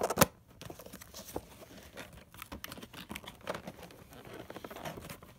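Cardboard toy box being handled and opened: scattered clicks, rustling and crinkling of the packaging, with a sharp loud snap just after the start.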